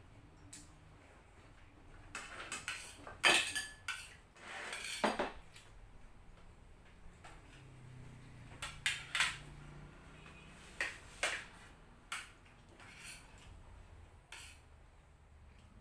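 Cutlery clinking and scraping against ceramic plates and bowls as two people eat, in irregular knocks and scrapes, the loudest about three and five seconds in.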